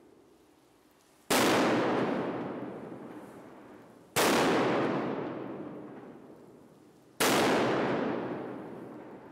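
Three loud firework bangs from a Pyrostar butterfly mat, about three seconds apart, each echoing and dying away slowly until the next.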